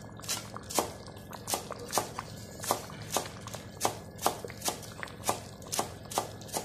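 Cleaver chopping green herbs on a round wooden chopping block: steady knocks of the blade on the wood, about two and a half a second.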